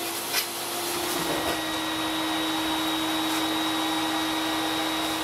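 Wet-dry shop vacuum running steadily with a steady hum and a high whine as its hose sucks debris off a cabinet top. There is a short knock just after the start.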